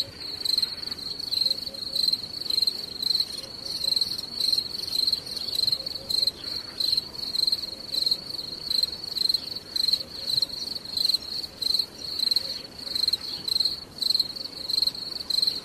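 An insect calling in an unbroken run of even, high-pitched pulses, about two a second.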